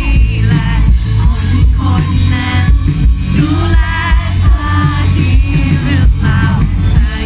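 Live pop-rock band playing loud through a PA, with the lead vocalist singing over electric guitar, keyboard, bass and drums.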